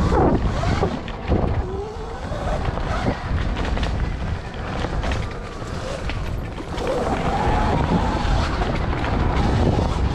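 Dirt bike being ridden, its pitch rising and falling as it speeds up and slows, over heavy wind rumble on the microphone.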